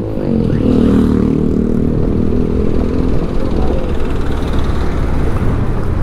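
A vehicle's engine runs steadily, heard from on board while moving, over a low rumble of road noise.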